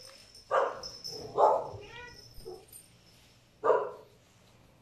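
Dog barking: two barks about a second apart, then a third about two seconds later.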